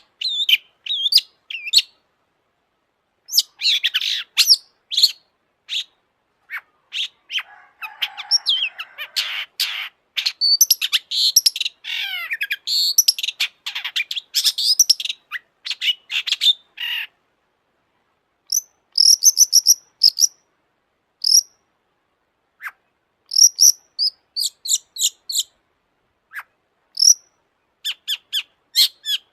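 Long-tailed shrike (cendet) singing: rapid runs of sharp chirps, trills and sweeping notes, broken by short silent pauses, with separate clipped calls near the end.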